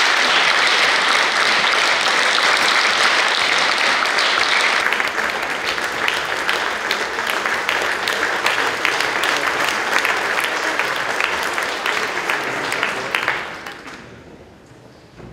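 Concert audience applauding steadily, the clapping dying away over about a second near the end.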